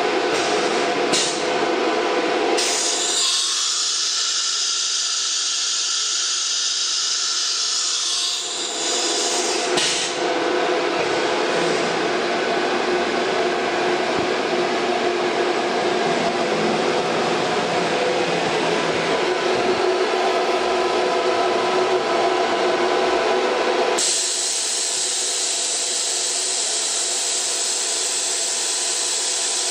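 CNC router's 9.6 kW HSD air-cooled spindle running at high speed and cutting wood, its pitch and texture shifting as the cut goes on. About 24 seconds in, the sound changes abruptly to a steady high hiss.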